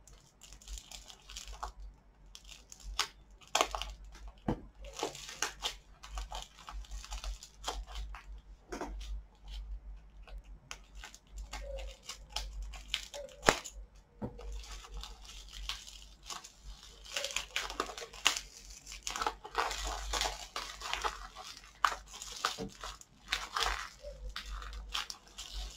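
Hands unwrapping a small package done up in clear sticky tape: the tape and wrapping crinkle, peel and tear in irregular crackles and snaps, thickest in the last third.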